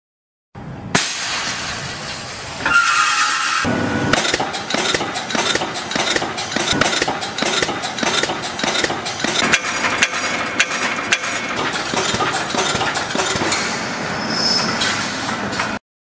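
Wire mesh cable tray welding machine running: its row of welding heads and wire feed make a dense, irregular clatter of metallic knocks and clinks, several a second. A brief high steady tone sounds about 3 s in. The sound starts abruptly about half a second in and cuts off abruptly near the end.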